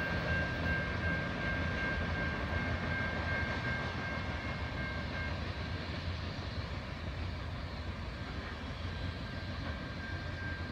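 Rumble of a passed loaded coal freight train slowly fading into the distance, with a steady high whine that dies away about halfway through.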